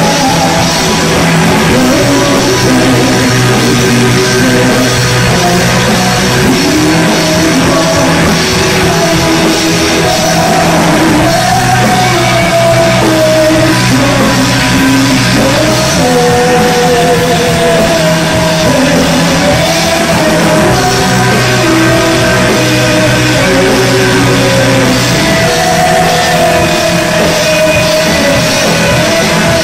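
Live rock band playing loud through a club PA: electric guitars, bass guitar and drums, with a wavering lead melody line above them.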